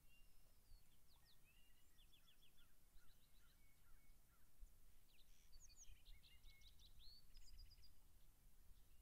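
Faint songbirds singing, with repeated quick series of chirps, whistles and short trills, busiest in the second half, over a faint low rumble.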